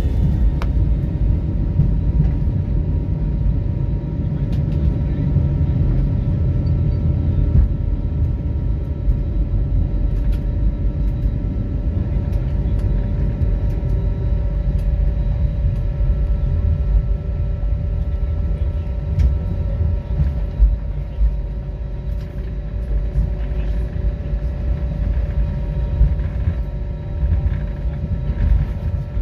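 Inside the cabin of a jet airliner taxiing after landing: a steady low rumble of the engines at idle and the wheels on the wet pavement, with a faint steady whine above it.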